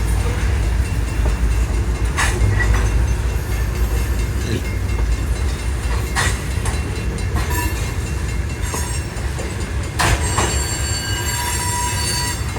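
Coal train rolling past: a steady low rumble of wheels on rail, with a few sharp clanks and a thin wheel squeal near the end.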